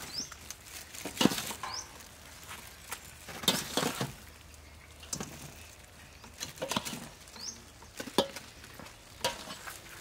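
Fried chicken drumsticks being dipped and turned in a steel bowl of thick chili sauce and set down on a steel tray: soft wet squelching with scattered taps and clinks on the metal. A few short, high, rising chirps, like a bird's, come and go.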